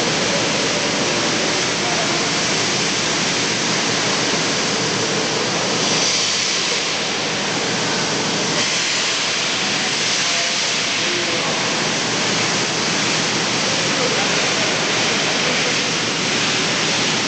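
A steady, even rushing noise that does not change, with no distinct tones, knocks or rhythm in it.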